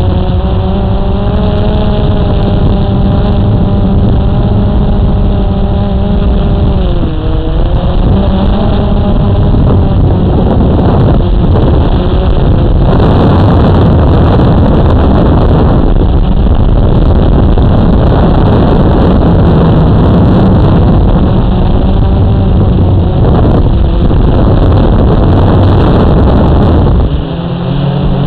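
A drone's electric motors and propellers, heard from the camera on board: a loud, steady buzzing hum whose pitch dips about seven seconds in and then recovers. For several seconds past the middle a rushing noise drowns the hum, and the hum's tone changes again just before the end.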